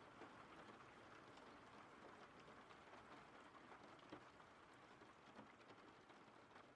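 Faint, steady rain ambience with scattered drop ticks.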